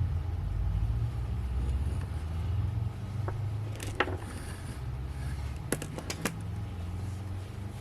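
A low, uneven rumble runs throughout, with a few sharp clicks and taps from about the middle on.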